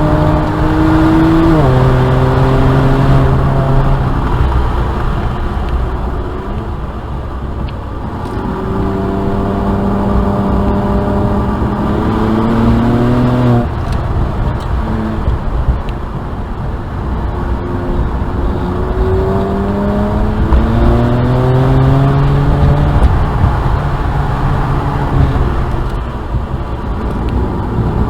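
2007 BMW 335i's twin-turbo inline-six running hard on track. The engine pitch climbs steadily under acceleration several times, falling away sharply at gear changes or lifts, with the clearest drops about a second and a half in and about halfway through.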